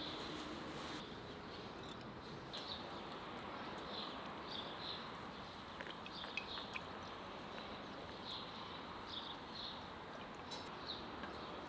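Small birds chirping on and off in short high calls over a steady hiss, with a few faint sharp crackles from the wood fire under the heating saj pan.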